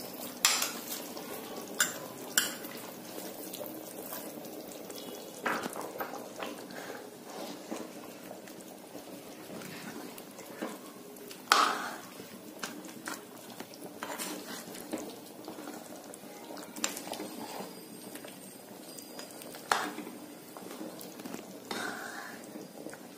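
Spatula stirring a thick mutton korma in a cooking pan: scattered knocks and scrapes of the spatula against the pan, the loudest about halfway through, over the soft bubbling of the simmering curry.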